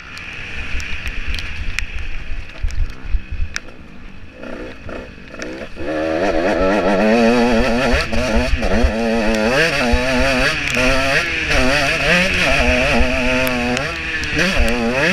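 KTM 125 SX two-stroke single-cylinder motocross engine, heard from an onboard camera. It is mostly off the throttle for the first few seconds, then from about six seconds in it revs hard, its pitch climbing and dropping again and again as the rider accelerates through the gears. Low thumps run throughout.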